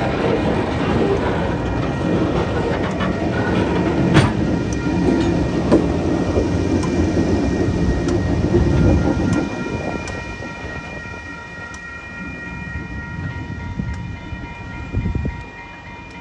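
Loaded cement hopper wagons and a diesel-electric locomotive rolling past close by over a level crossing, wheels rumbling and clattering with a couple of sharp clanks. About nine and a half seconds in, the sound drops to a quieter, more distant train rumble with a steady high-pitched whine of several tones.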